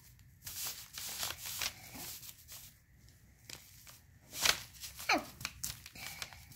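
A small wooden chisel scratching and picking at the clay block of a mystery-gem dig kit, in irregular gritty strokes with a few sharp clicks, the loudest about four and a half seconds in.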